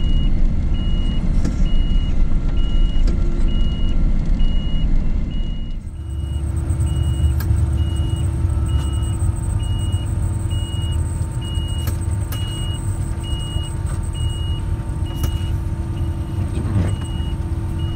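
Tucker Sno-Cat's engine running as it drives through deep snow, heard from inside the cab, with a short high warning beep repeating evenly a little more than once a second. About six seconds in the engine sound becomes a fuller, steadier rumble.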